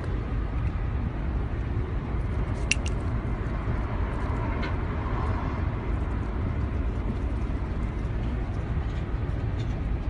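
Steady low rumbling background noise, with one sharp click nearly three seconds in.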